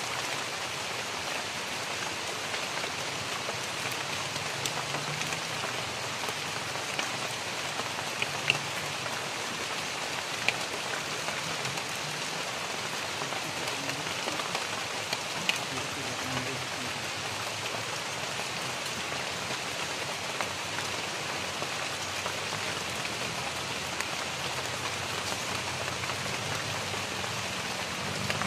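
Steady rain falling on dense tropical foliage, an even patter with a few sharper drip taps.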